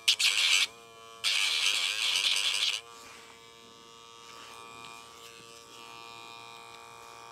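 Cordless electric pet nail grinder running and grinding a dog's nail: a short harsh grinding burst at the start and a longer one from about a second in to nearly three seconds. After that the grinder runs free with a steady, quieter hum.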